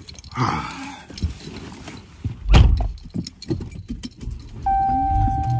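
Someone getting into a car: rustling and small clicks, then a car door shut with one heavy thunk about halfway through. Near the end a steady electronic tone and a low hum start up.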